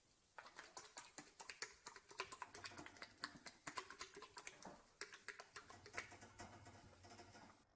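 A horse mouthing at its stall door, its teeth and lips making fast, irregular clicks and smacks against the metal bars and rail.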